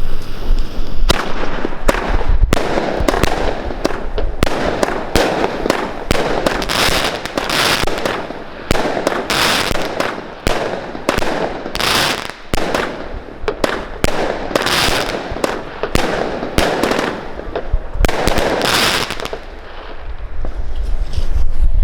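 Game Breaker consumer fireworks battery from Original Fireworks firing a rapid run of shots, each a sharp bang followed by a burst with crackle, repeated many times over about twenty seconds. Wind rumbles on the microphone at the start and again near the end.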